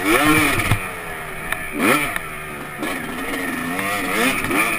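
Motocross bike engine heard from on board, revving hard and backing off as it is ridden round a dirt track, its pitch climbing sharply at the start and again near two seconds in.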